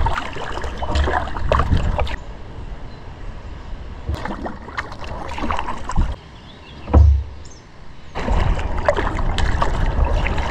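Kayak paddle strokes splashing and dripping in river water, coming in stretches about four seconds apart, with a single low thump about seven seconds in.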